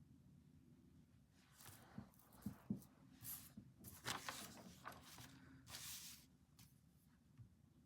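Faint rustling and a few soft taps, as from paper and objects being handled at a desk, over a low steady room hum. The rustles and taps come through the middle of the stretch, and it goes quiet near the end.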